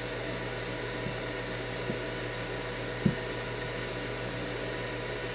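Steady background hum and hiss, unchanging throughout, with a few faint ticks and a single soft knock about three seconds in as floured chicken drumsticks are handled on a silicone mat.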